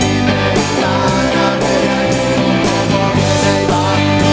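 A rock band playing live, with a steady drum beat under guitar and bass.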